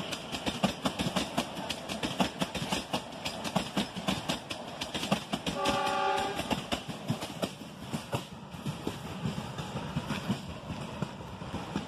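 Narrow-gauge passenger coaches rolling past close by, their wheels clattering over the rail joints in a quick, even rhythm that thins out near the end as the train moves away. About halfway through, the locomotive's horn sounds briefly.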